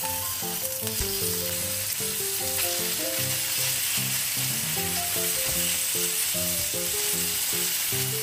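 Thinly sliced pork sizzling steadily in hot sesame oil in a nonstick frying pan as the pieces are laid in and spread out, with a light background melody over it.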